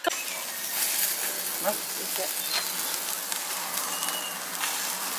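Sliced onions sizzling steadily in a frying pan.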